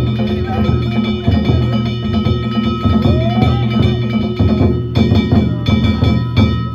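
Danjiri festival float music: a taiko drum beating with hand-struck gongs ringing in a fast, dense rhythm over it.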